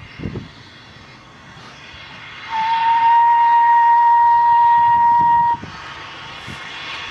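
Small steam tank locomotive's whistle, one long steady blast of about three seconds, starting about two and a half seconds in and cutting off sharply.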